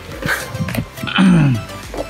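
Background music, with a few light clicks and, a little over a second in, a short pitched sound sliding down in pitch.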